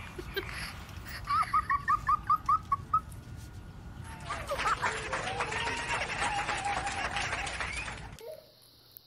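Baby giggling in a quick run of about nine short, high-pitched squeals, followed by a longer, noisier stretch of laughter that stops near the end.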